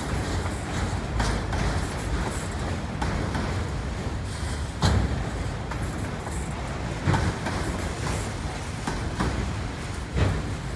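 Freight train of autorack cars rolling past: a steady rumble of steel wheels on rail, broken by a few sharp knocks, the loudest about five seconds in.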